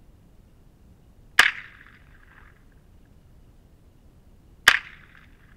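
Two gunshots from a handgun fitted with an oil-filter suppressor, about three seconds apart. Each is a sharp crack followed by a short rolling echo.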